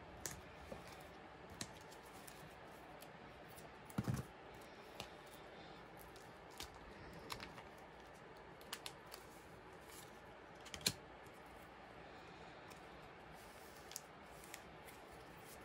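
Sleeved photocards handled and slid into the clear plastic pocket pages of a ring binder: scattered soft clicks and plastic taps, loudest in a short knock about four seconds in and a sharp click near eleven seconds.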